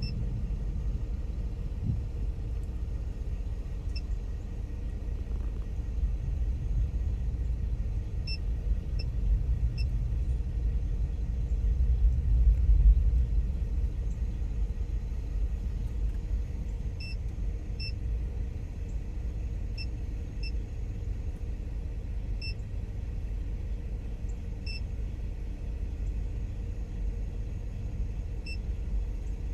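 Wind buffeting the microphone: a steady low rumble that swells about twelve seconds in, with a few faint, short, high beeps now and then.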